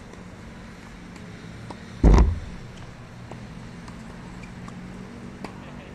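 Tennis balls struck with racquets, a faint crisp pock about every second and a half, over a steady low hum of road traffic. About two seconds in comes one loud, short low thump.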